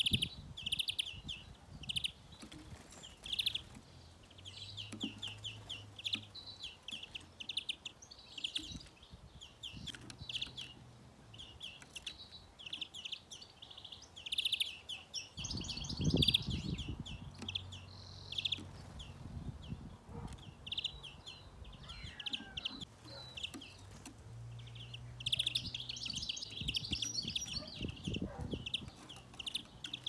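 Small songbirds chirping in quick repeated series, with denser twittering bursts about halfway through and again near the end. A low rumble comes up about halfway through.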